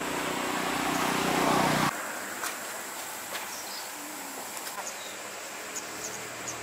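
A motor running and growing louder, cut off abruptly about two seconds in. After that, quieter outdoor background with a thin steady high whine and a few short high bird chirps near the end.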